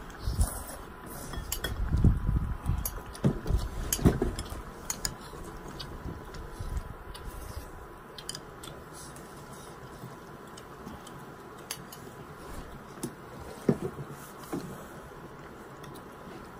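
Eating utensils clinking and tapping against a dish: a flurry of short clicks over the first several seconds, then a few more near the end.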